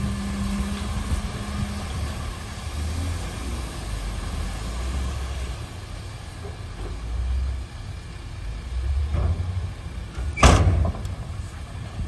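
Heavy diesel earthmoving machinery running with a low rumble that rises and falls, then a single sharp, loud bang near the end.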